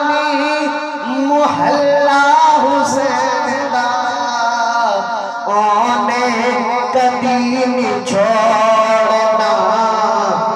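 A man's voice singing Punjabi devotional verses into a microphone, drawing out long, wavering held notes and melodic turns.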